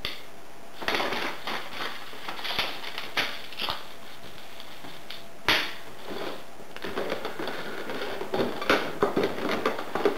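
Cardboard box and plastic packaging being handled: rustling, scraping and light knocks, with one sharper knock about five and a half seconds in and busier rustling near the end.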